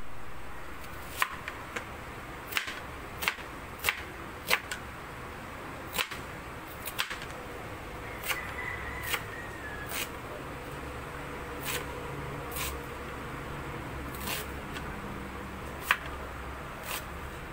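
Kitchen knife chopping an onion on a cutting board: irregular sharp knocks of the blade striking the board, roughly one a second.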